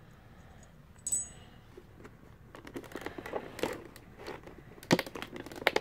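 A light metallic clink about a second in as two small steel hex-shank socket adapters are set down. Then irregular clicks and crackles of a stiff plastic clamshell blister pack being handled and flexed.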